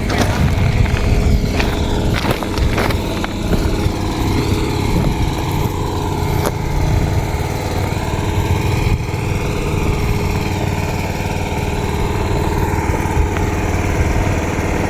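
A small engine running steadily at an even speed, with a few light knocks in the first few seconds.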